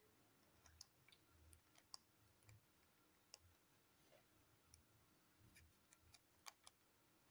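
Near silence: room tone with faint, irregular clicks scattered through it.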